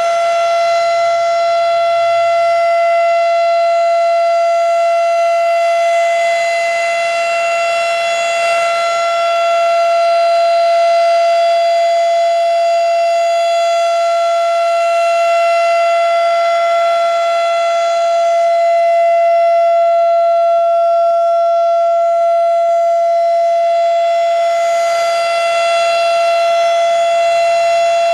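Federal Signal RSH-10A Thunderbeam rotating outdoor warning siren sounding its steady full Alert tone during a test, one held pitch that swells and eases gently in loudness every eight or nine seconds as the horn turns. The siren sounds healthy.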